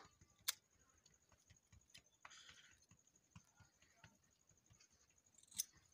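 Small scissors snipping loose sisal fibres off a braided rope: two sharp clicks, about half a second in and near the end, with faint ticks and rustling of fibres between them.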